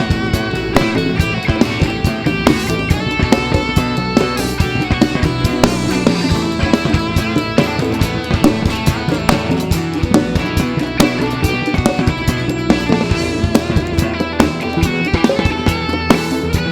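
Live band playing an instrumental passage of a gospel rock song with no singing: a steady drum-kit beat with bass drum and snare, bass guitar, and electric and acoustic guitars.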